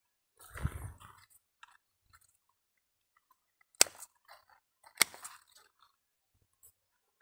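Footsteps crunching on dry, clumpy soil. Two sharp knocks about a second apart near the middle are the loudest sounds.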